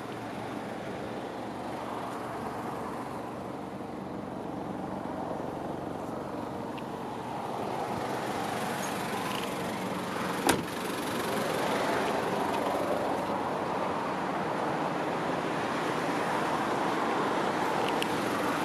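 Steady motor-vehicle running noise that grows somewhat louder partway through, with a single sharp click about ten seconds in.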